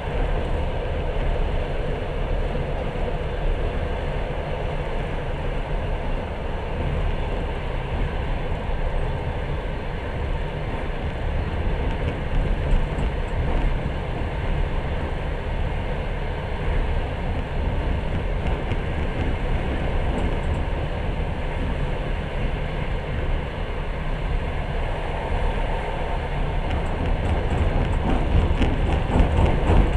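Passenger train running along the track, heard from inside the carriage: a steady low rumble of wheels on rails, growing a little louder near the end.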